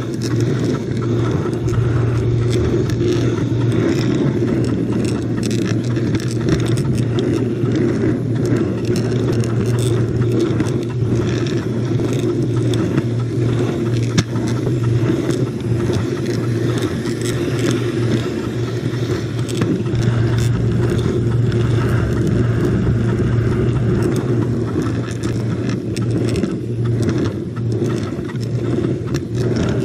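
Model train running along the layout's track, heard from a camera riding on it: a steady motor hum with faint scattered ticks from the wheels on the rails.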